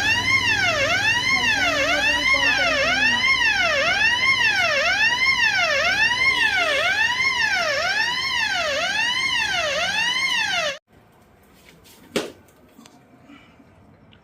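Bank's electronic security alarm siren wailing, its pitch sweeping up and down about once a second, then cutting off suddenly about eleven seconds in, followed by a single sharp click. The alarm is faulty and goes off by itself, which the operations manager puts down to an old system set off by dust getting inside.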